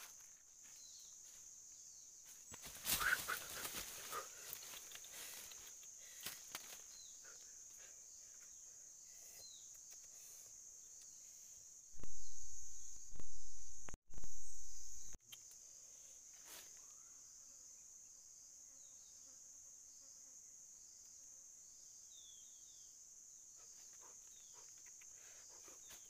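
Insects buzzing steadily at a high pitch in the woods. Rustling steps on dry leaves come between about three and five seconds in. A loud, low, muffled rumble runs from about twelve to fifteen seconds in and stops abruptly.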